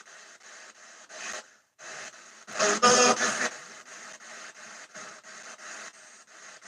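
Spirit box sweeping through radio stations: a choppy stream of static and clipped radio fragments at about three a second. About halfway through there is a louder, garbled voice-like fragment lasting about a second.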